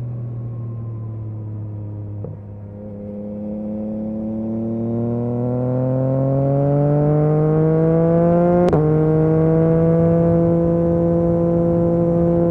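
Yamaha MT-09 SP three-cylinder engine through an Akrapovic exhaust under way: after a brief dip in level about two seconds in, it rises steadily in pitch as the bike accelerates, then shifts up with a sharp click and drop in pitch near the three-quarter mark and carries on at a steady pitch.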